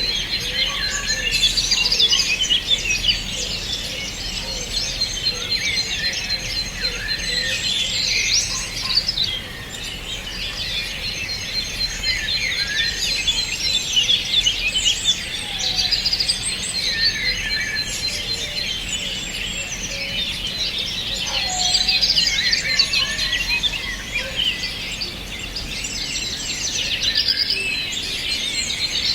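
Many songbirds singing and chirping at once in a dense, overlapping chorus of short high calls. A fast high trill on one pitch recurs through it.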